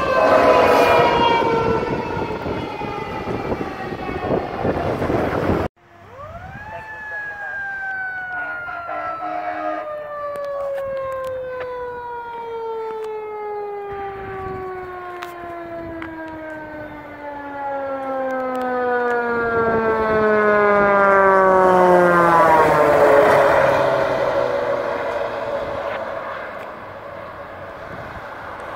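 Fire truck's mechanical siren winding down in a long falling tone. After a cut it spins up quickly about six seconds in, then coasts down slowly over some twenty seconds as the truck approaches, with engine and road noise swelling loudest near the end.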